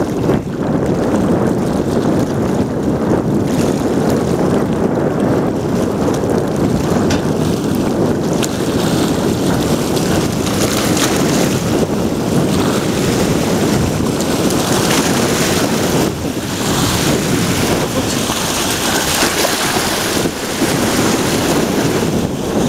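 Surf washing and foaming over the rocks at the water's edge, a steady rushing noise, with wind buffeting the microphone.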